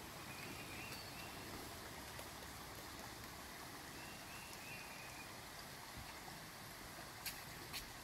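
Faint, steady trickle of a shallow creek flowing, with two sharp clicks near the end.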